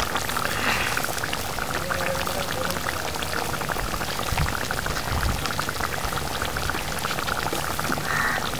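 Curry simmering in a pan on the stove: a steady fizzing crackle of many small bubbles popping.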